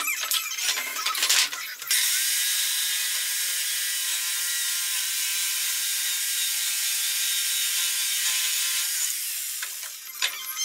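Electric jigsaw sawing through pallet wood: it starts about two seconds in, runs steadily for about seven seconds, then stops. Knocks and clatter of boards come before and after it.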